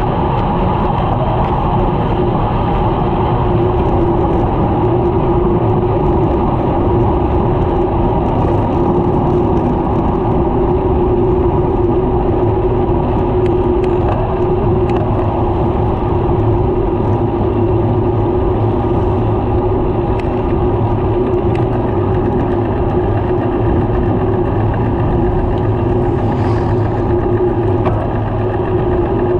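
Steady wind and road noise from a road bicycle riding at speed, heard through a handlebar-mounted camera microphone.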